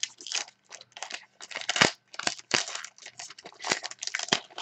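Trading-card pack wrapper crinkling and tearing as it is opened by hand: a quick, irregular run of short crackles.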